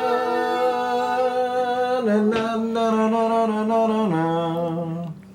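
A person singing or humming a wordless tune in three long held notes, each pitched lower than the last, stopping just before the end.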